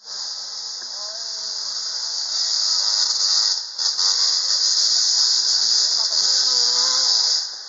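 Enduro dirt-bike engines revving as they climb a steep hill, their pitch rising and falling, strongest near the end, under a loud, steady, high-pitched hiss.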